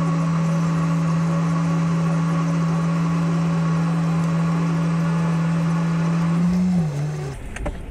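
Vehicle-mounted electric winch motor running with a steady hum, then slowing with a falling pitch and stopping about seven seconds in.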